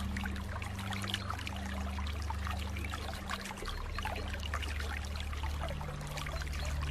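Flowing water trickling and bubbling, with many small quick splashes, over a low steady hum that shifts in pitch now and then.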